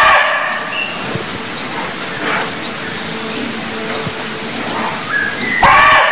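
Barking deer (red muntjac) giving loud short barks, one at the very start and another about six seconds later, with fainter calls between. A short high chirp repeats about once a second behind them.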